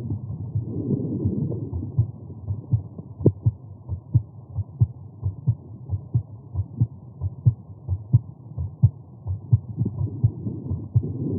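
Human heartbeat heard through a stethoscope over the aortic valve area after exertion: regular low thumps, about two a second, with a rushing noise around the start and again near the end.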